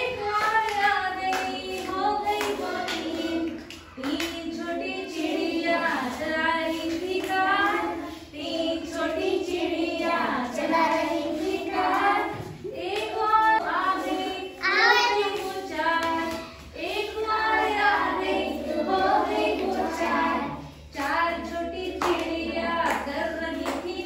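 Children singing a Hindi counting rhyme about little birds.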